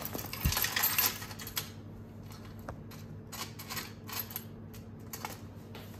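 A bunch of metal keys on a keyring jangling and clinking, busiest in the first second and a half, then a few scattered clinks.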